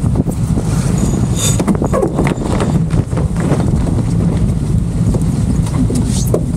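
Strong wind rumbling on the microphone, with scattered short knocks and clicks.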